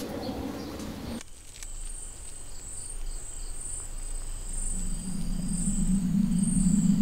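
Crickets chirping at night, a high pulsing trill about twice a second. From about five seconds in, a low rumble swells in underneath and grows louder.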